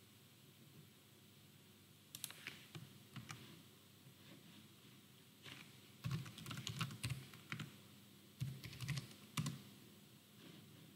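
Faint typing on a computer keyboard in short bursts, with a denser run of key clicks about six to seven seconds in and another near nine seconds.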